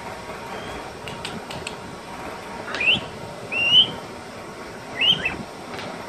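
African grey parrot giving three short upward-gliding whistles, the second the loudest, with a few soft clicks a little before them.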